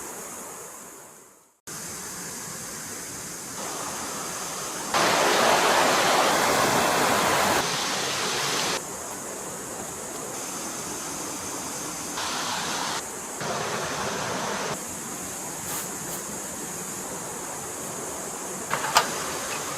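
Flowing stream water, a steady rushing that fades out and cuts back in near the start, then jumps up and down in loudness several times, loudest from about five to eight seconds in. A few sharp knocks near the end.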